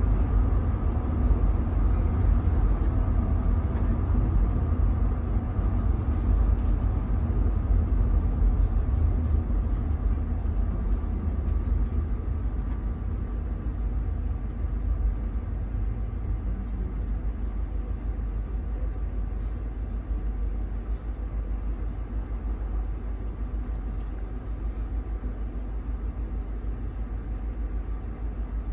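Steady low engine and road rumble heard from inside the cab of a large vehicle on the move, easing off and growing quieter about halfway through as it slows into queued traffic.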